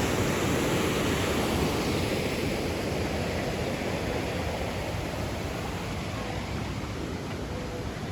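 Rushing river water, a steady even rush that slowly grows fainter.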